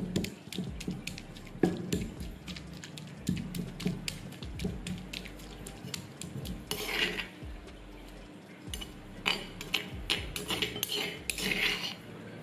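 Pestle pounding fresh ginger in a stone mortar: a quick run of knocks against the stone. In the second half come rougher scraping passes as the crushed ginger is ground and worked against the mortar's walls.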